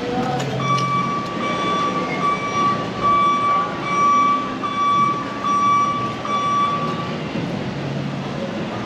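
A steady high-pitched tone, alarm-like, comes in about half a second in and stops about seven seconds in. It swells in loudness roughly once a second over a steady background rumble.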